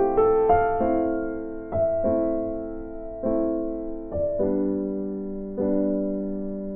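Slow, soft piano music: single notes and chords struck every second or so and left to ring out and fade.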